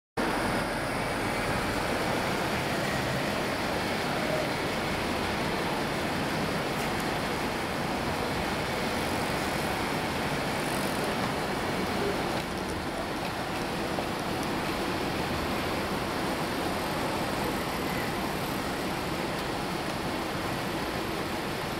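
Steady road-traffic noise from passing cars, a continuous even hiss that drops slightly in level about twelve seconds in.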